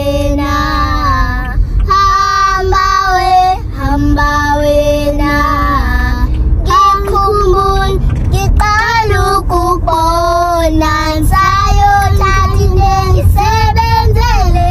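Young girls singing a song in isiXhosa, with long held notes and sliding melody, over the low rumble of the car they ride in.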